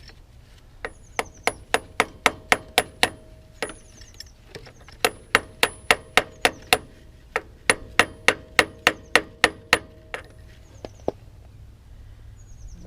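Ball peen hammer with a bent handle tapping a new axle seal into a differential housing: several quick runs of sharp metallic taps, about four a second, each with a short ring, and a pause between runs.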